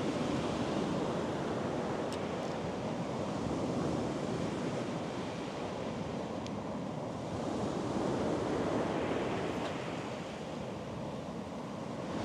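Sea surf breaking and washing up on a beach, swelling and easing with each wave.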